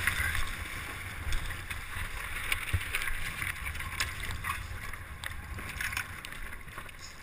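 Water rushing and splashing past a Hobie catamaran's hulls as it sails fast, with wind buffeting the microphone and scattered short knocks and taps.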